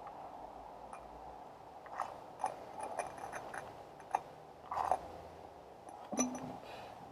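Hand oil pump forcing gear oil into an outboard motor's lower gearbox: scattered small clicks and short squelches over a steady background hum.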